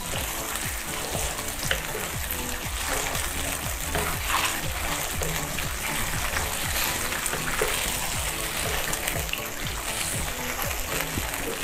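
Cream sauce with gnocchi sizzling and bubbling in a frying pan while being stirred with a wooden spatula, under background music.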